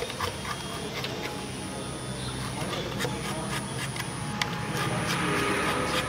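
A stick scraping and prying thick caked grease and grime out of the hub of a kitchen exhaust fan's blades, with scattered small clicks and a scratchy hiss that grows louder about five seconds in.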